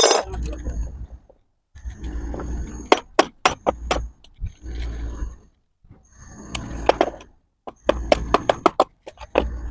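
Metal clinks, knocks and scraping in several short bouts as a cast butterfly valve is shifted and tapped into position between the pipe flanges to centre its seat.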